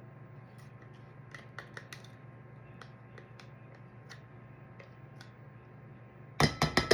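Scattered light clicks and taps of kitchen utensils over a low steady hum, then a quick run of about five loud clanks near the end, as a measuring cup or utensil knocks against the saucepan.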